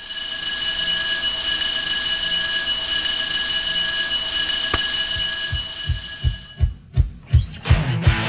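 An electric bell rings steadily as one held, ringing tone and stops about six and a half seconds in. From about five and a half seconds in, a run of low thumps comes at roughly three a second, quickening toward the end.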